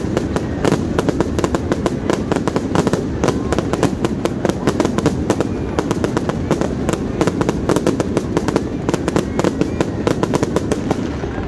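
Fireworks display: aerial shells bursting overhead in a dense, rapid run of bangs and crackles, many a second, without let-up.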